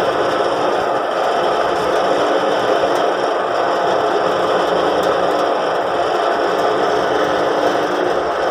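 Kato 250-ton mobile crane's diesel engine running steadily while the crane works its boom.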